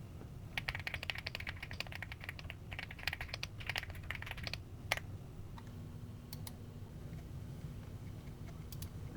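Typing on a computer keyboard: a quick run of key clicks for about four seconds, one more key press, then a few scattered clicks near the end.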